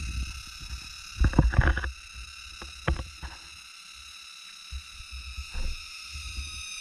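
Camera handling noise: irregular low rumbles and knocks as the camera rubs and bumps against clothing. The loudest cluster comes about a second and a half in, with a sharp click about a second later. Behind it are steady high-pitched tones.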